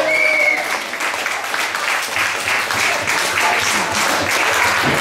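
A small audience clapping, a dense, steady patter of many hands.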